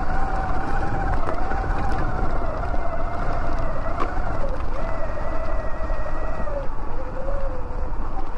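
Electric bike motor whining as it rides a dirt trail, the pitch wavering with speed over a low rumble of tyres and wind on the microphone. The whine drops lower about six and a half seconds in as the bike slows.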